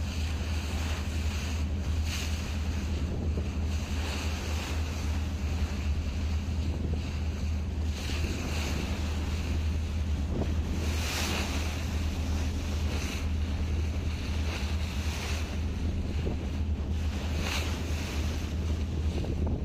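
Steady low drone of a boat's engine, with wind buffeting the microphone and water rushing past. A louder surge of water or wind comes every few seconds.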